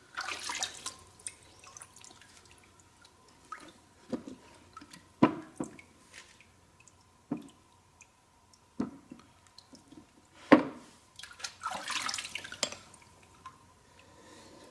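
Plane blade being worked on a wet natural sharpening stone: scattered small knocks and drips of water, with two short stretches of scraping as the blade is rubbed over the stone, one near the start and one about two-thirds of the way through.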